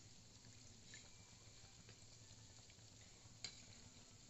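Faint, steady sizzle of donut rings deep-frying slowly in hot oil, with a couple of light clicks.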